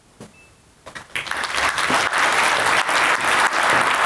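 An audience in a lecture hall applauding, starting about a second in and swelling quickly to full, steady clapping.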